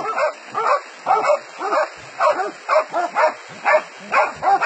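A dog barking steadily in quick, evenly spaced barks, about three a second.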